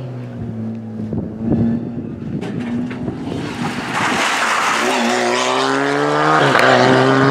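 Suzuki Swift rally car's engine at high revs as the car comes past close by and pulls away, the pitch climbing under acceleration with a brief break for a gear change about six and a half seconds in.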